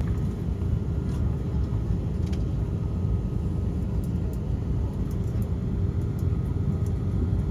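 Steady low rumble of jet aircraft engines, with a faint steady whine on top.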